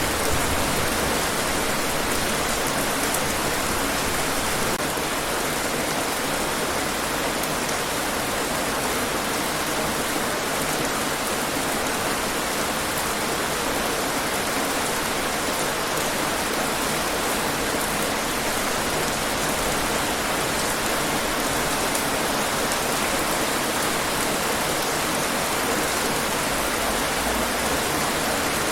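Steady, even rainfall on hard surfaces.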